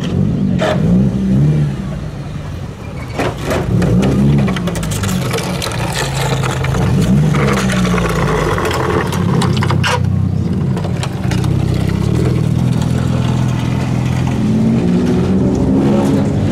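Engine of a heavily lowered car, blipped again and again so its note rises and falls as it creeps past at low speed. A few sharp knocks are heard, one near the start, one about three seconds in and one about ten seconds in.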